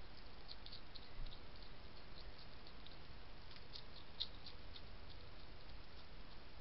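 European hedgehog crunching dry food from a bowl: faint, irregular crisp clicks in little clusters, busiest around the middle, over a steady background hiss.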